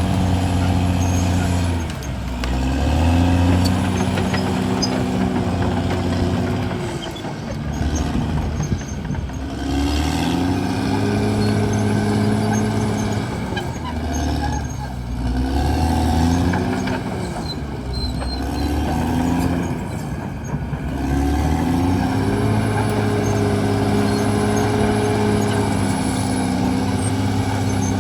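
CAT D6R XL bulldozer's diesel engine running hard, its pitch sagging and climbing back several times as the load on it changes.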